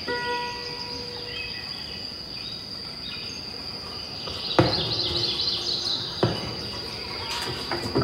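Fireworks going off: a sharp bang about halfway through followed by crackling, another bang a second and a half later, and more near the end. Crickets chirp steadily underneath, and a struck chime rings out and fades at the start.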